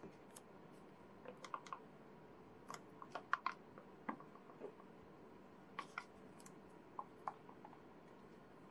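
Faint, scattered small clicks and crinkles, in a few quick clusters, as a plastic soup pouch is squeezed out into a ceramic mug, over a quiet steady room hum.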